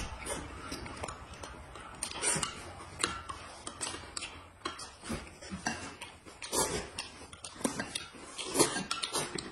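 Two people chewing and slurping at a meal, with irregular clicks of chopsticks on a plate and a spoon against a glass.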